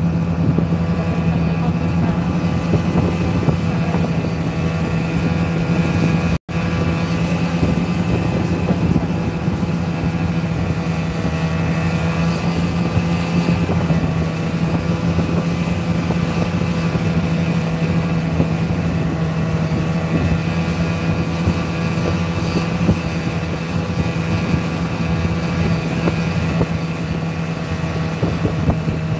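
Snowmobile engine running steadily at cruising speed, a constant even drone. The sound cuts out for an instant about six seconds in.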